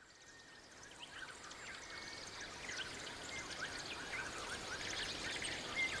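Many small birds chirping and twittering over a steady background hiss, fading in over the first couple of seconds.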